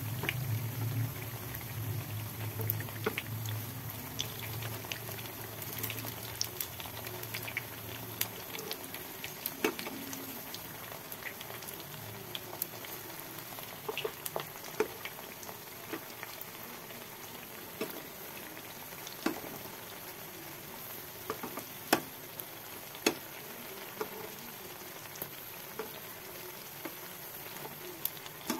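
Battered pakoras deep-frying in hot oil: a steady sizzle with frequent sharp crackles and pops.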